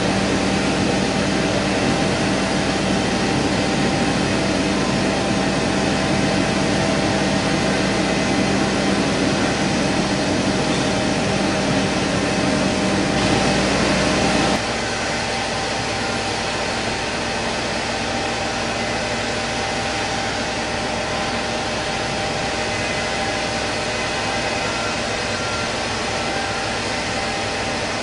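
Truck-mounted swabbing rig running steadily: an even engine and machinery drone with a low hum. About halfway through it drops abruptly to a quieter, thinner running noise without the low hum.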